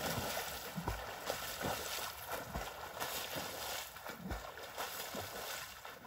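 Lake water splashing as a swimmer plunges in headfirst, then splashing with his strokes as he swims away.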